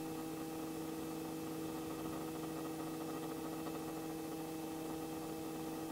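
Faint steady hum and hiss with a few fixed tones, as heard on the headset intercom audio of a Robinson R44 helicopter while no one is talking; the helicopter's own noise comes through only faintly.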